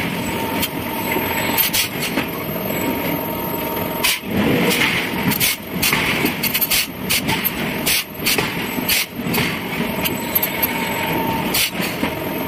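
Heavy forging-shop machinery running steadily, with irregular sharp clanks and knocks of metal on metal several times a second.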